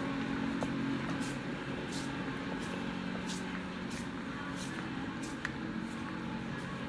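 Steady background hum of a large store, with light footsteps ticking at an even walking pace, about one and a half steps a second.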